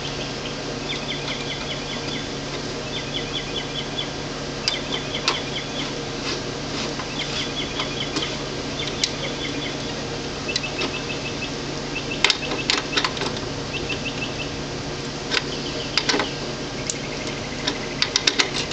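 A small bird chirping in quick runs of high notes again and again, over a steady low hum. Sharp clicks and taps come from wires and tools being worked inside an electrical panel, a cluster of them near the end.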